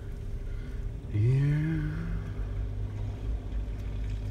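Jeep's engine running at low speed, a steady low drone heard from inside the cabin.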